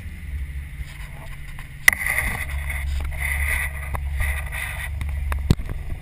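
Low steady rumble of a boat's engine, overlaid with knocks and rubbing from a thumb handling the camera: a sharp click about two seconds in, scratchy rubbing after it, and another click near the end.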